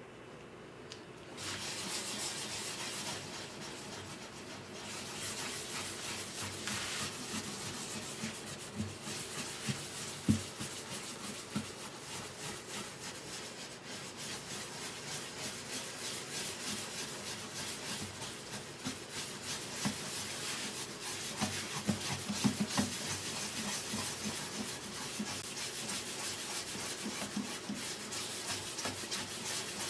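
Hand sanding on the wood of a guitar under repair: a steady run of quick, rasping strokes that starts about a second and a half in, with a couple of light knocks about ten seconds in and again past the twenty-second mark.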